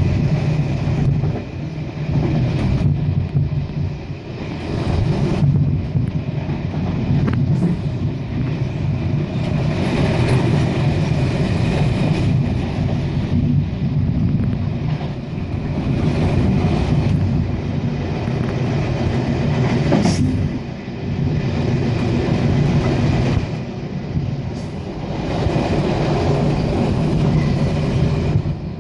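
Electric passenger train running at speed, heard from inside the carriage: a steady low rumble and hum of the wheels on the rails, with a couple of sharp clicks along the way.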